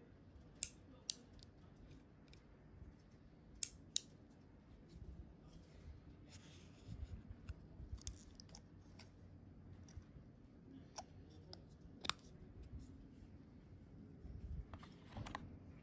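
A GoPro Hero 11 Black action camera and its fold-out mounting fingers being handled, giving sharp plastic clicks: a pair about a second in, another pair around four seconds, and a single one about twelve seconds in. Quieter handling rustles and ticks fall between them.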